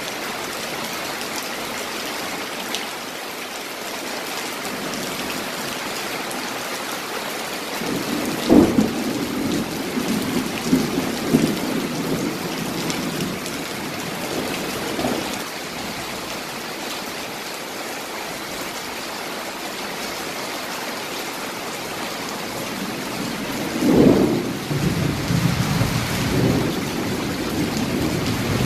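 Steady rain, with two long rolls of thunder: one starting about eight seconds in and rumbling for several seconds, the second starting about twenty-four seconds in.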